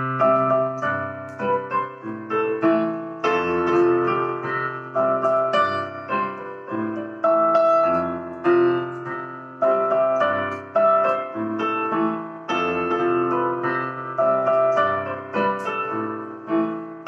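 Solo piano playing a slow passage of chords and melody notes, each struck note fading before the next.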